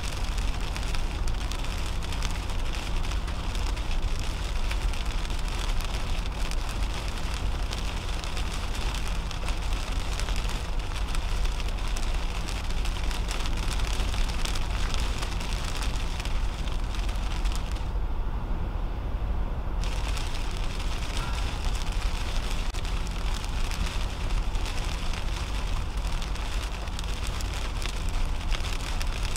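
Rain pattering steadily on the windshield and roof of a moving 2010 Toyota Camry, heard from inside the cabin over a low rumble of tyres on the wet highway. About two-thirds of the way through, the high rain hiss cuts out for about two seconds as the car passes under an overpass, then returns.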